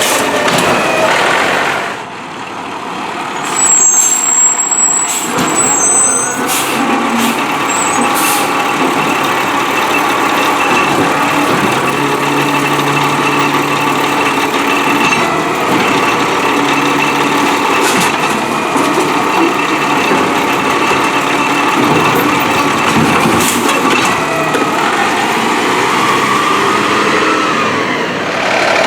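Peterbilt 320 refuse truck running, with a loud burst of air hiss about four seconds in and steady machine noise after it.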